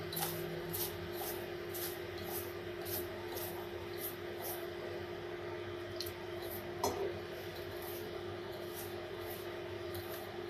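A hand rubbing and squeezing damp semolina in a steel bowl to make puttu flour, a soft rasping swish about twice a second, with a couple of sharp clicks around six to seven seconds in. A steady low hum runs underneath.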